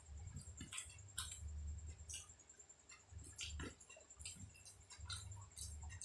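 A person chewing food close to the microphone: irregular wet mouth smacks and clicks about every half second to a second, over a low, faint thudding of the jaw.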